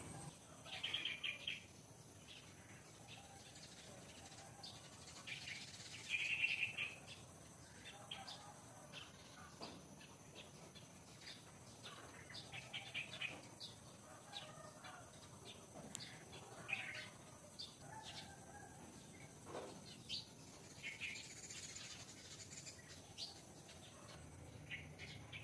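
Small birds chirping in short bursts, loudest about a second in and again around six seconds, over faint scattered clicks and rustles.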